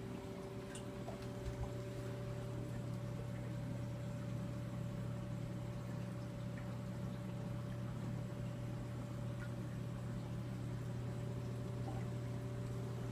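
Reef aquarium equipment running: a steady low pump hum with water moving and circulating.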